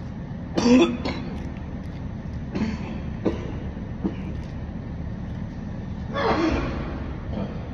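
A man coughing after exhaling a lungful of smoke: a sharp cough about a second in, a smaller one a couple of seconds later, and a longer cough near the end, over a steady low rumble.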